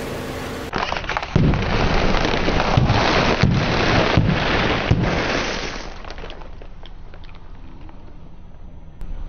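Car tyre rolling over and crushing crunchy objects: a loud, dense run of crackles and snapping pops that starts about a second in and dies down to a faint crackle after about six seconds.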